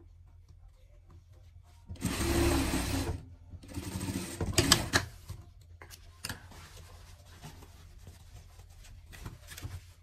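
Industrial sewing machine stitching a seam in two short runs, the first about two seconds in and the second just after. A few light clicks follow.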